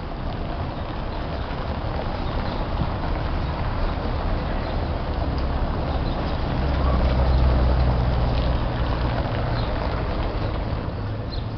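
A car driving over a cobblestone street, its tyres rumbling on the paving stones, growing louder to a peak about seven or eight seconds in and then easing off.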